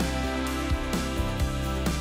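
Background instrumental music with a guitar and sliding notes.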